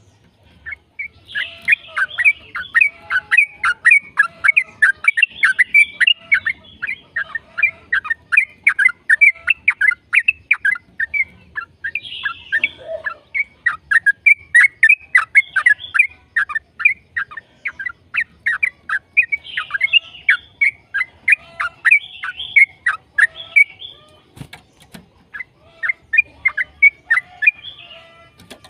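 Yellow-vented bulbul (trucukan) singing a long rapid song: a continuous chattering run of short, clear notes, about three a second, with a couple of brief pauses.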